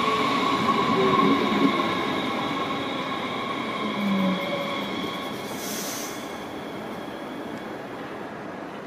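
DB Class 430 S-Bahn electric multiple unit braking into a platform: steady high electric whines over rolling noise, a lower tone falling slightly as it slows, and the whole sound fading toward the stop. A short hiss comes about six seconds in.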